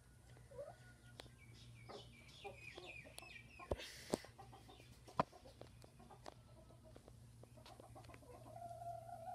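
Broody hen sitting on her eggs, clucking quietly in a run of short calls, with a drawn-out call near the end. A few sharp clicks, about four and five seconds in, are the loudest sounds.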